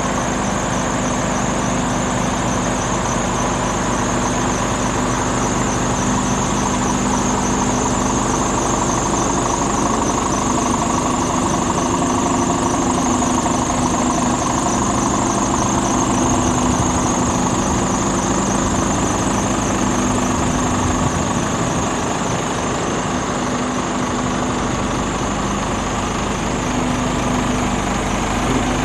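Scania R410 truck's 13-litre straight-six diesel idling steadily, with a constant high whine above the engine note.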